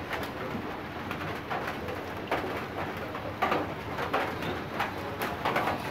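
Scattered light clicks and taps from a CRT TV's main circuit board and its wires being handled and moved, over a steady background noise.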